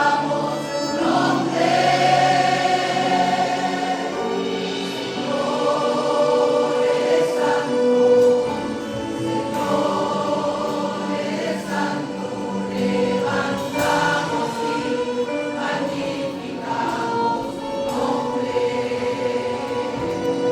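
Church choir singing a Spanish-language worship song in sustained, held notes.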